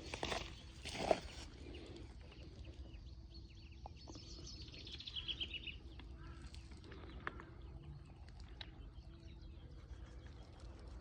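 A songbird singing a quick run of high notes that steps down in pitch, about four seconds in, with a few fainter calls after it. A few crunching sounds come in the first second or so.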